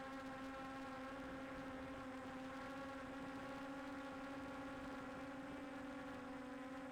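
Steady electric whirring hum of a quadcopter drone's propellers, one pitch with a ladder of overtones that wavers slightly as the motors adjust speed.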